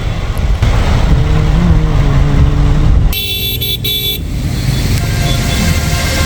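Road traffic with vehicle engines running, and a horn honking twice in quick succession about three seconds in.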